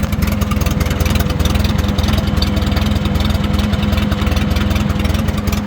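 Case 310 crawler dozer's gasoline engine idling steadily, with a fast even chatter of firing pulses. It is running smoothly after sitting for a while and getting fresh gas.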